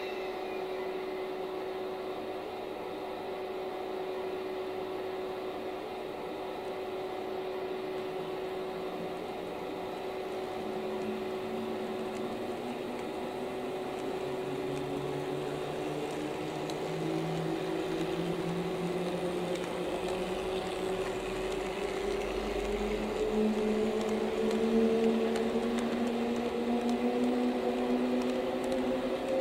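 Electric-locomotive running sound from a KATO Sound Box for an EF64 starting off: a steady hum, then from about ten seconds in several traction-motor tones that rise slowly in pitch and grow a little louder as the locomotive gathers speed.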